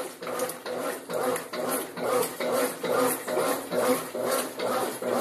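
Brastemp top-loading washing machine agitating a load, its agitator swishing back and forth in a steady rhythm of about two strokes a second.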